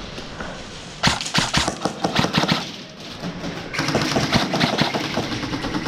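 Airsoft guns firing rapid shots in quick bursts, starting about a second in. A busier clatter of shots and movement follows from about four seconds in.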